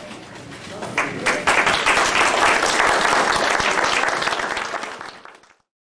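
Audience applauding, building up about a second in and dying away after about five seconds.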